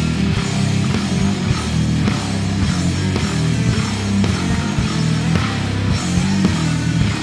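Heavy rock music played on electric bass and a drum kit, with a dense low end and a steady run of drum hits.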